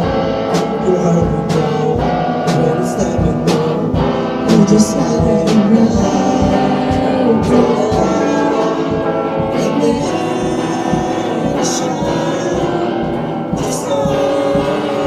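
Unpracticed amateur singing of a pop song over backing music with a steady beat.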